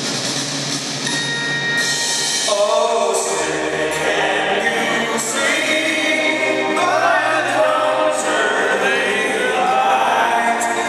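Music with singing that comes in a couple of seconds in, over a steady background noise.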